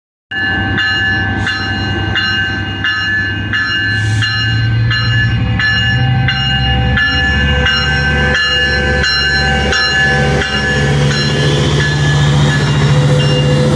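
Metrolink's EMD F125 diesel locomotive pulling away from a stop. Its engine rises in pitch about six seconds in as it throttles up, and a bell rings steadily about once every three quarters of a second.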